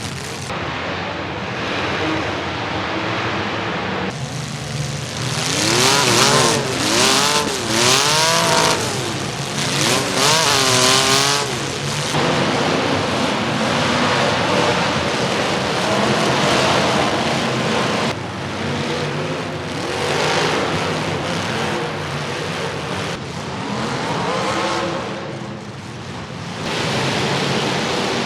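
Demolition derby cars' engines revving hard, rising and falling in pitch, with strongest revving about five to twelve seconds in, amid the noise of cars slamming together. The sound changes abruptly several times.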